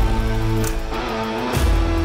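Background music with a sustained bass line that moves to a new low note about one and a half seconds in.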